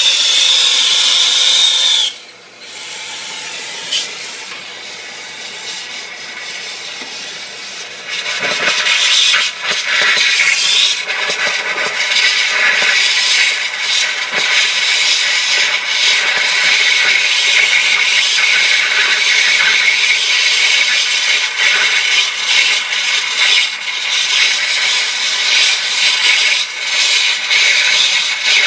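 Oxyacetylene torch flame hissing steadily as it heats a copper heat-exchanger joint for brazing with a copper-silver-phosphorus rod. The hiss drops lower about two seconds in and comes back to full strength near eight seconds.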